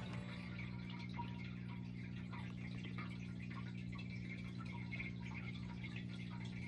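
A low, steady hum with faint, scattered small ticks over it.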